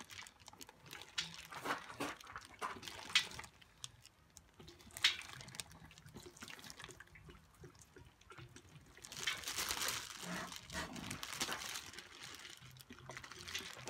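Hot water poured from a stainless steel kettle onto a plastic shrink-wrap bag in a metal roasting pan, splashing and trickling as the bag shrinks tight around its contents. The pour is heaviest about nine to eleven seconds in, with a couple of sharp clicks earlier on.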